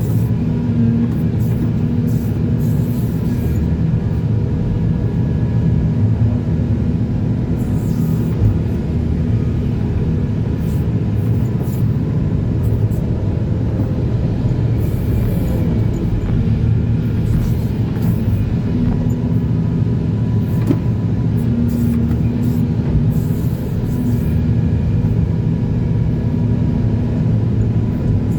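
Heavy diesel engine of an excavator running steadily under load, with a few faint clicks over it.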